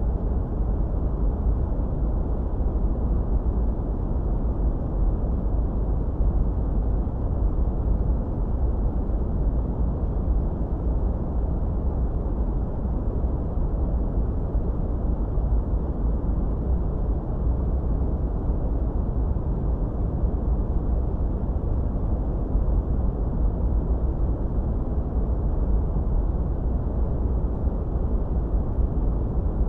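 Steady, unchanging generated noise, deep and muffled, with most of its weight in the low rumble and little hiss in the treble.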